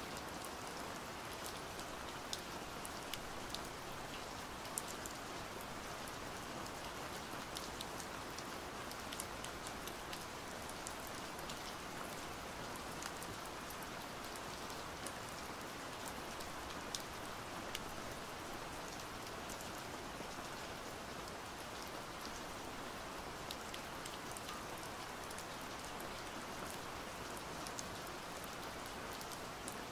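Steady rain falling, with many scattered sharp ticks of individual drops landing.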